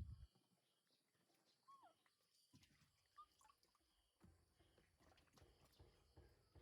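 Near silence, with a low thump at the very start and two brief, faint high chirps that dip in pitch, about a second and a half apart.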